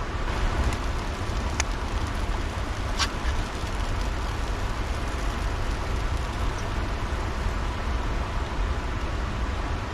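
Portable camp stove burner running steadily under a pot, with a couple of light clicks about one and a half and three seconds in.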